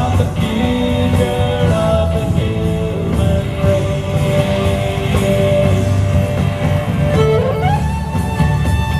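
Instrumental passage of a live song: guitar and a low accompaniment under a held melody line that slides up to a higher note about seven and a half seconds in.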